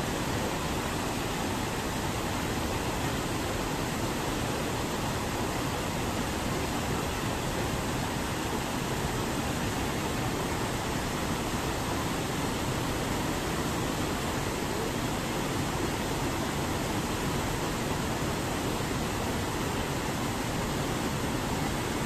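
Steady rush of water pouring over a low stone weir into a shallow pool: an even, unbroken hiss.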